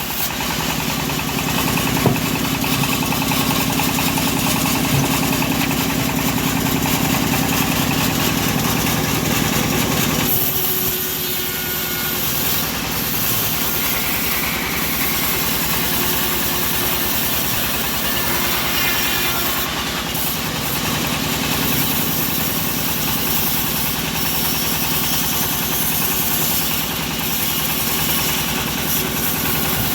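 Engine-driven homemade bandsaw mill running steadily while sawing teak. A low hum present at first drops away about ten seconds in, and the machine keeps running after that.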